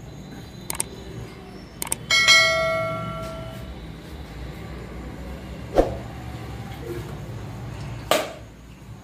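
Butcher's cleaver chopping a dressed chicken on a wooden block: sharp single chops spaced a few seconds apart. About two seconds in comes a single metallic ring, the loudest sound, fading over about a second and a half.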